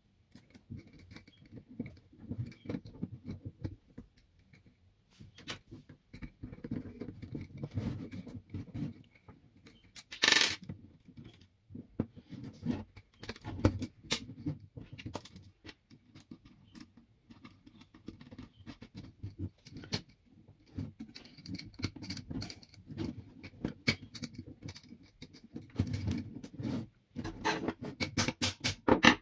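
Irregular clicks, taps and rustling of small hard parts being handled and fitted together by hand. One louder scraping noise comes about ten seconds in.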